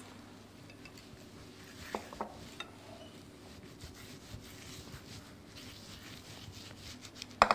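Pastry brush spreading beaten egg over lavash flatbread: faint brushing with a few light taps against the glass bowl, and one sharper knock near the end.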